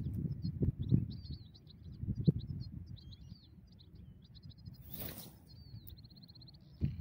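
European goldfinches twittering in quick, liquid notes, ending in a fast trill near the end. Wind buffets the microphone in the first half, and a brief rushing hiss comes about five seconds in.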